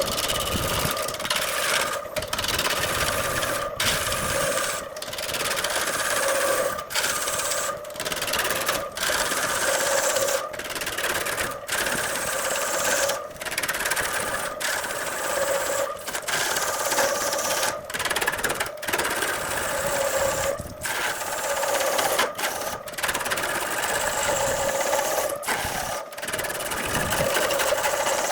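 A woodworking power tool running steadily with a constant motor tone while it cuts or abrades wood, with a rasping, rubbing noise over it. The sound is chopped by many abrupt short breaks every second or two.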